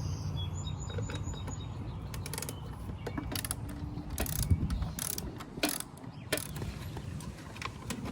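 Ratchet wrench clicking in irregular strokes as a bolt is worked loose on the motorcycle, with a few sharper metal clicks.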